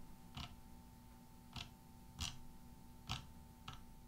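Five faint, sharp clicks spaced irregularly, over a faint steady electrical hum.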